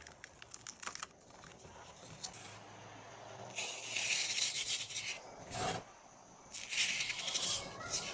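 Fine white craft sand sprinkled from a plastic spoon and spread over the sticky sheet of a sand-painting card: two dry hissing rushes, about three and a half and about seven seconds in. A few faint crackles in the first second come from the backing paper being peeled off.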